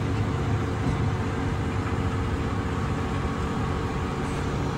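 Tractor engine running steadily at about 1,800 rpm under load, pulling a stalk chopper through standing sorghum, heard from inside the cab as an even low hum.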